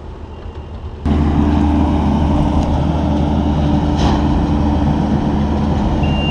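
Heavy vehicle engine running steadily with a deep hum, cutting in abruptly about a second in; near the end a reversing alarm starts beeping.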